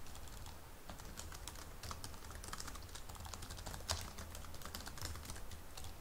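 Computer keyboard typing: a quick, irregular run of key clicks as a line of code is entered, with one louder key strike about four seconds in.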